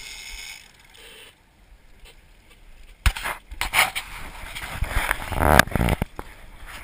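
Handling noise on an action camera: a quiet stretch, then from about three seconds in loud, irregular knocks, bumps and scraping against the camera as it is moved and turned around.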